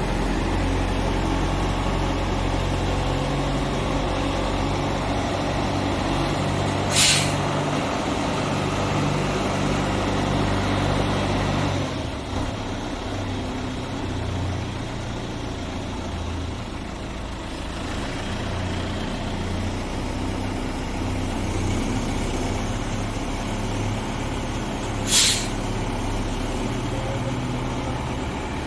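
John Deere 160 excavator's diesel engine running under working load, its pitch shifting as the hydraulics are worked. It runs heavier for the first dozen seconds, then eases off. Two short, sharp hisses come through it, one about seven seconds in and one near the end.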